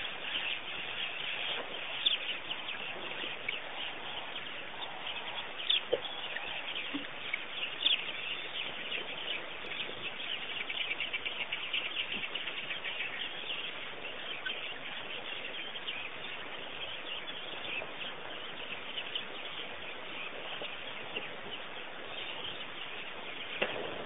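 A chorus of many small birds chirping and twittering continuously, busiest about halfway through, with a few sharper, louder notes in the first third.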